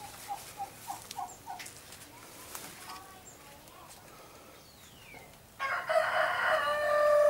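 A handful of short clucks, then near the end a rooster crows loudly for about two seconds, its call dropping in pitch as it ends.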